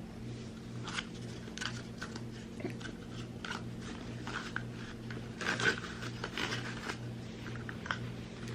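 Irregular scrubbing and scraping, a cloth or paper towel rubbed over carpet to clean up a puppy's urine spot with cleaner spray, busiest a little past halfway, over a steady low hum.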